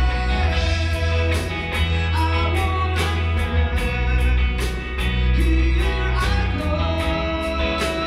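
Live rock band playing: a man singing into a microphone over electric guitars, bass guitar and a drum kit, with cymbal strokes keeping a steady beat about two to three times a second.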